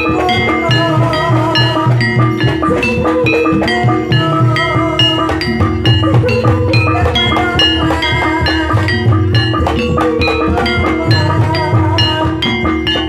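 Javanese gamelan music accompanying an ebeg (kuda lumping) dance: a kendang hand drum under struck, ringing tuned percussion playing a steady repeating melody.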